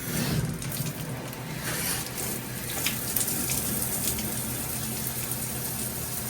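Shower running: water coming on and spraying steadily from the shower head.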